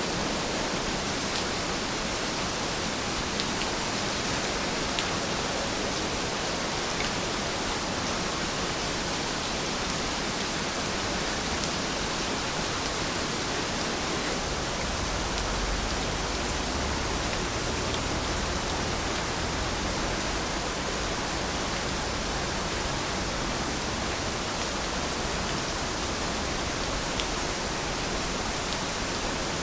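Steady rain falling: an even hiss with a few faint ticks of single drops. A low rumble swells briefly about halfway through.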